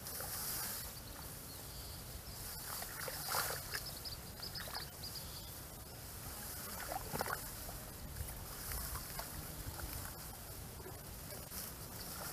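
Grass and leafy weeds rustling in short bursts as hands push through and pull at them, over steady low outdoor noise.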